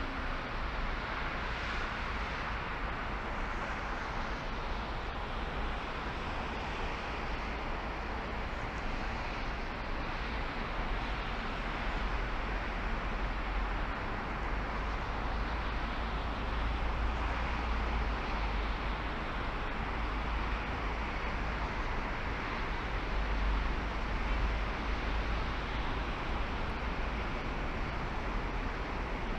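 A car driving along: steady road noise with a deep rumble underneath, growing a little louder partway through.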